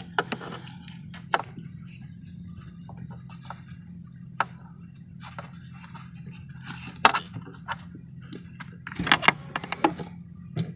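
Scattered clicks and light knocks of hand work on a car's hood release cable and its fittings, a few sharper clacks grouped near the end.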